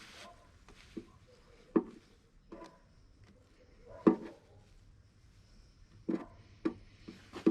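Handling knocks in a switched-off car's engine bay while the belt pulleys are being greased by hand: about seven separate short clunks and taps, the loudest about four seconds in.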